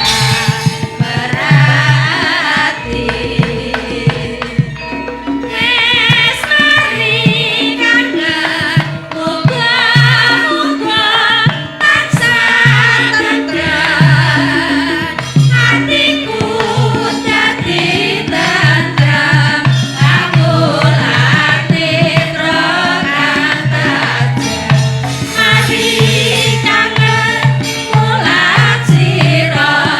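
Javanese gamelan-style song accompaniment. A singer holds wavering, vibrato-laden lines over a steady pattern of hand-drum strokes, with sustained tones underneath.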